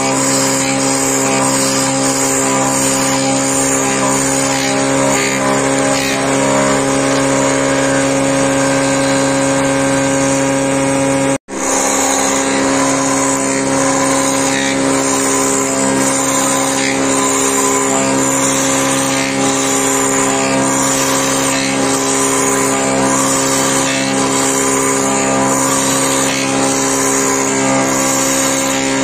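Horizontal wood boring machine running steadily, its motor giving a steady hum while the spinning bit bores into a wooden beam and throws out shavings. The sound drops out for an instant about eleven seconds in.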